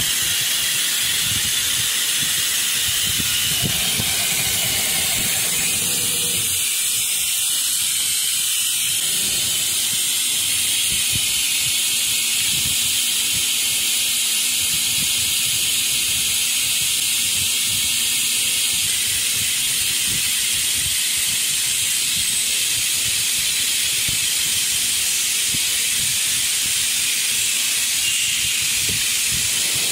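Steady, loud hiss of machine noise from a CNC router, unchanging throughout.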